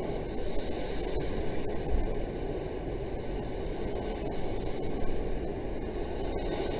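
Rough, storm-driven sea surf: a steady rush of waves breaking against a sea wall, with wind noise and a brief hiss of spray about a second in.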